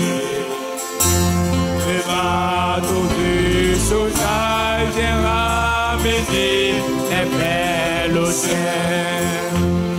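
Live French gospel song: voices singing held, sliding notes over acoustic guitar accompaniment with steady low bass notes.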